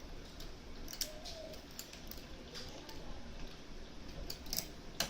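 Irregular small metal clicks and scrapes of lock-picking tools working inside a Mosler M5700 safe deposit box lock, with the loudest click near the end.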